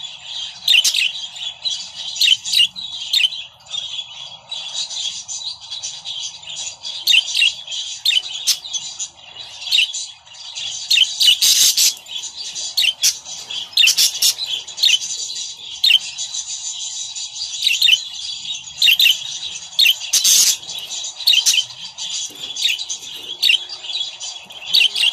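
Caged budgerigars chattering and warbling without a break, with many short sharp chirps and a few louder, harsher squawks along the way.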